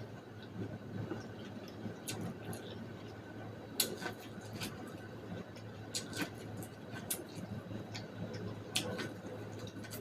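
Close-up eating sounds of biting and chewing boiled corn on the cob: irregular wet clicks and smacks, the sharpest a little under 4 s in, at 6 s and near 9 s, over a low steady hum.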